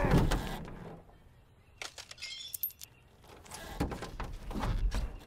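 Film sound effects of a car being wrenched up and lifted: scattered metal clanks and knocks with small rattling bits, densest near the end, after a loud sound dies away in the first second.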